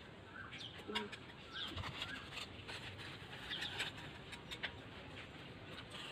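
Birds chirping and calling faintly in short scattered notes, with light clicks and rustles of dry leaves being picked up by hand and dropped into a plastic pot.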